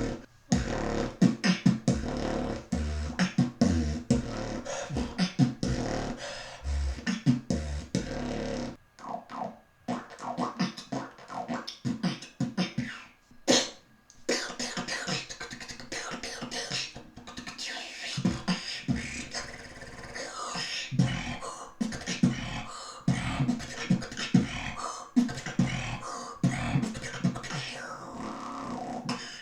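A beatboxer making vocal percussion and sound effects with the mouth: quick, sharp clicks and hits. For the first nine seconds or so a deep pulsing bass runs under them, then the bass drops out and a string of different mouth-made effects follows.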